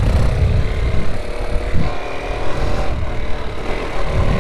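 Motorcycle engine running under way at a fairly steady pitch, with wind rumbling on the microphone.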